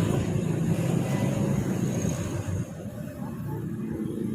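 Low engine rumble of a bus in traffic, getting somewhat quieter after the middle.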